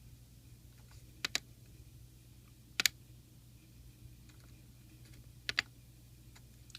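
Small tactile push buttons on an LCD keypad shield clicking as they are pressed and released, three times, with each press a click or a quick pair of clicks. A faint steady low hum sits underneath.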